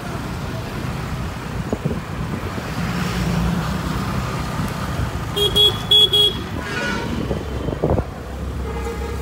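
Motor scooter running steadily through traffic, its engine and road noise filling the sound. A horn gives a few short beeps in quick succession a little past halfway.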